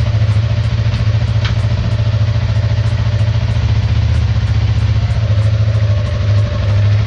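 Motorcycle engine idling steadily with an even, fast low pulse. There is one light click about a second and a half in.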